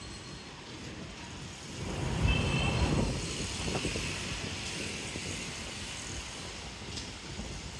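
Outdoor city ambience with a low traffic rumble that swells about two seconds in and then fades slowly.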